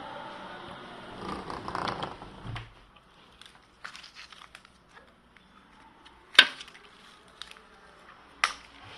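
Crinkling, rustling handling noise for about two and a half seconds, then scattered light clicks and two sharp clicks, the loudest about six and a half seconds in.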